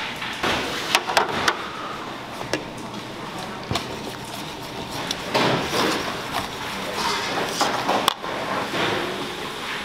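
A wire whisk stirring a liquid mixture in a stainless steel bowl: scattered sharp clinks of metal on metal over a steady background noise.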